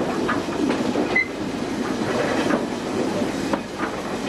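Railway brake van riding slowly along the track: wheels rumbling on the rails, with irregular clicks and knocks from the rail joints.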